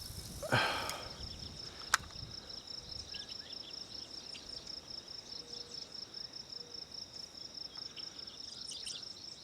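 Insects chirping in a steady pulsing chorus, several pulses a second. Just after the start comes a short rush of noise, and a sharp click about two seconds in.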